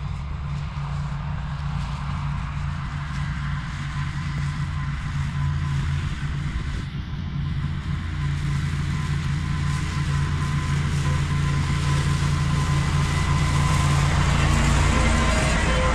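Ventrac compact tractor running steadily under load while its Tough Cut mower deck cuts overgrown grass, a constant engine drone with a noisy wash of cutting sound on top. It grows louder and brighter over the last few seconds.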